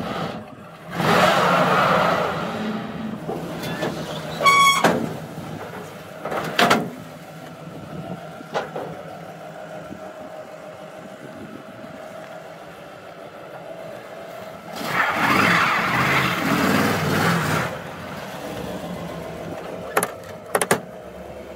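Pontiac Trans Am's V8 engine running as the car is driven off a car-hauler trailer, louder in two spells, one about a second in and one about fifteen seconds in. A short beep comes about four and a half seconds in, and a couple of sharp clicks near the end.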